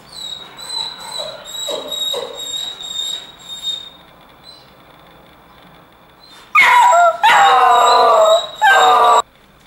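Irish setter left alone, whining in a thin high voice for a few seconds, then giving three loud wailing howls back to back from about six and a half seconds in: separation distress at being left alone.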